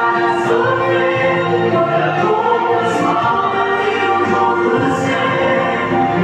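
Choir singing a worship song in harmony, with long held notes.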